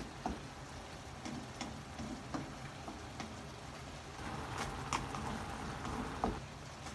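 A spatula stirring a simmering stew of bottle gourd, ground pork and crab in a wok, with scattered clicks of the spatula against the pan over a steady bubbling hiss. The stirring is heaviest from about four seconds in until just after six.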